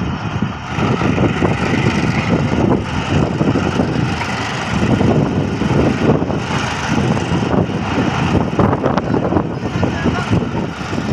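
Passenger train coaches running along the track at speed: a steady, loud rumble and clatter of wheels and carriage, heard at an open coach window.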